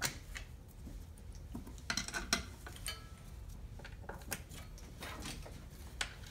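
Small steel valve cover bolts clinking in a metal parts tray and being set into the engine's valve cover: scattered light metallic clicks, busiest about two seconds in.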